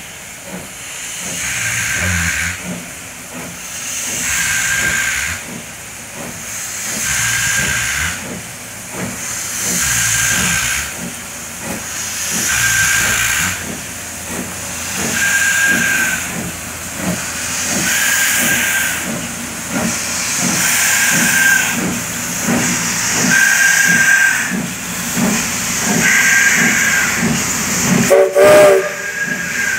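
A 1947 Baldwin 4-8-0 narrow-gauge steam locomotive pulling slowly away from a stop, its exhaust and open cylinder cocks hissing in regular bursts about every two and a half seconds. A brief louder tone comes near the end as it passes close.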